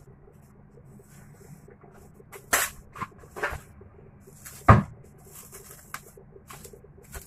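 Off-camera kitchen handling: plastic cling wrap rustling as it is handled to cover a bowl of dough, with a few knocks and a louder thump about two-thirds through.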